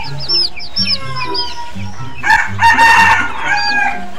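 A rooster crows once, a loud call of under two seconds starting about two seconds in, over background music with a steady beat and repeating high chirps.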